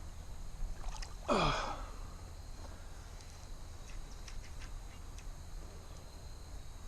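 Water sloshing and dripping as a person wades into a creek pool. About a second in there is a short vocal grunt that drops in pitch, followed by a few light splashes and drips.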